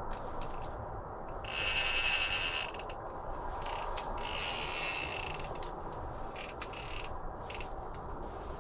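Spinning reel being cranked while fighting a hooked fish, its mechanism ticking and ratcheting, with two longer ratcheting runs about a second and a half and four seconds in.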